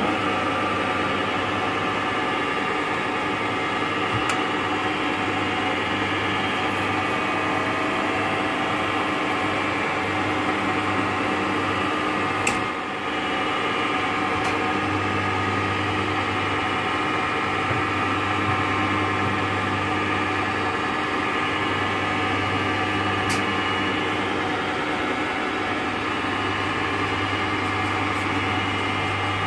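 Sajo milling machine running steadily after being switched on: an even motor and gearbox hum with a few steady whining tones. There is a brief dip with a click about twelve seconds in.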